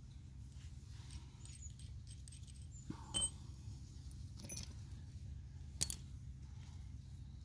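Metal hand tools clinking and knocking as they are handled and picked from a pile on the ground: light ticks, a sharper knock about three seconds in and a louder one just before six seconds. A steady low rumble runs underneath.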